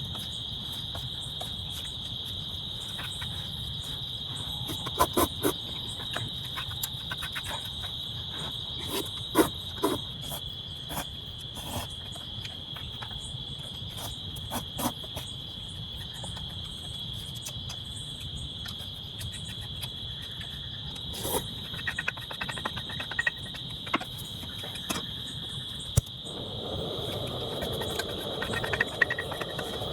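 Crickets trilling in one steady high unbroken chorus, over a low rumble, with scattered sharp taps and clicks. Near the end a louder rushing noise comes in.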